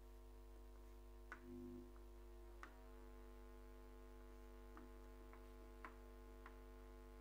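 Chalk tapping on a chalkboard while writing: faint, irregularly spaced ticks, about seven of them, over a steady background hum.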